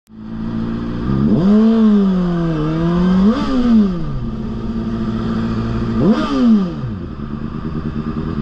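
Sport bike engine heard from the rider's helmet camera, with steady wind noise: the throttle opens about a second in, then a quick rev up and back down a little after three seconds, a steadier stretch, and another sharp rev blip up and down about six seconds in.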